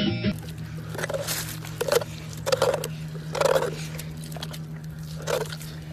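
A dog lapping and slurping water from a bucket, in a string of wet slurps about every half second to second.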